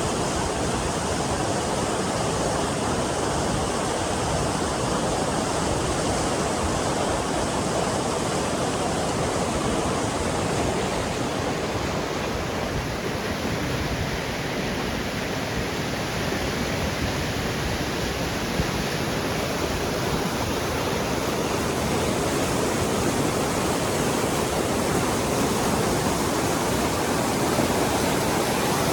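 The Lidder, a glacier-fed mountain river, rushing steadily and loudly.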